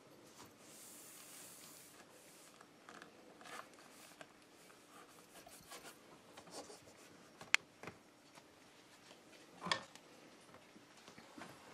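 Hands rubbing and smoothing self-adhesive flashing tape onto a wooden window sill: faint rustling and rasping of the tape and its backing. Scattered light clicks run through it, with a sharp tick about seven and a half seconds in and a louder knock about ten seconds in.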